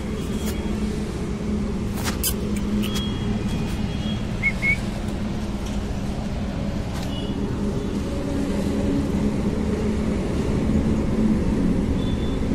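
Steady low rumble of motor traffic, with a few sharp clicks about two seconds in and a brief high chirp near the middle.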